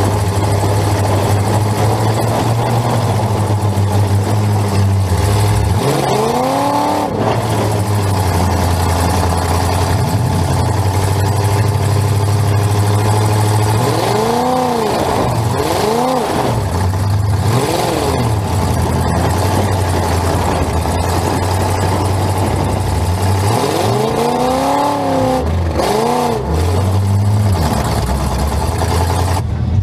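Demolition derby car's engine heard from inside the cabin, idling with a steady drone and revved up and back down in short throttle blips: once about six seconds in, three in a row around the middle, and a few more near the end.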